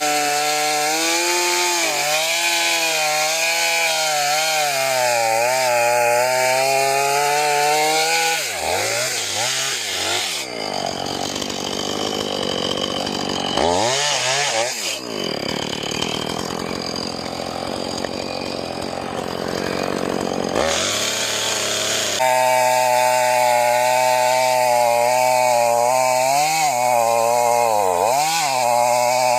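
Two-stroke chainsaw cutting into a log, its engine pitch sagging and recovering as the chain loads up in the wood. For about ten seconds in the middle the engine note turns rougher and less steady before the even cutting note returns.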